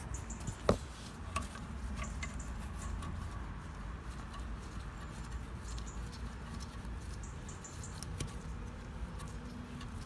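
Gloved fingers handling and threading in the slider bolts of a rear brake caliper: scattered small metallic clicks and scrapes, with one sharper click about a second in, over a low steady rumble.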